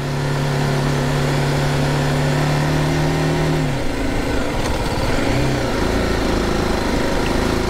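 BMW G310GS single-cylinder motorcycle engine running at a steady cruise, its tone falling away about four seconds in as the throttle eases, under constant wind and road rush.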